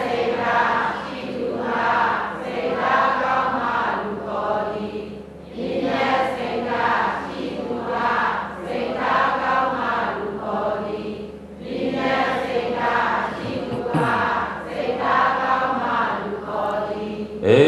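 A group of people reciting a Burmese verse together in unison, chant-like, three times over with short breaks between.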